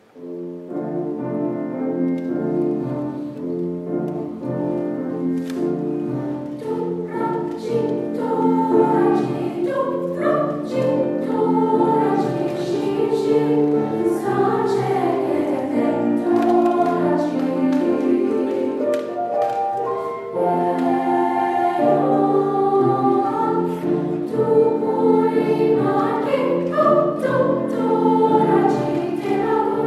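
Middle school choir singing together, the voices coming in all at once at the start after a moment of quiet, growing fuller about eight seconds in.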